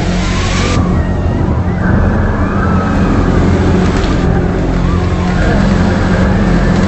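Loud, steady low drone made of several stacked hum tones, with faint wavering higher notes over it: one of the eerie 'strange sky sounds' of the kind passed around as an apocalyptic trumpet. The upper range changes abruptly about a second in and again around four seconds, as if separate recordings were spliced together.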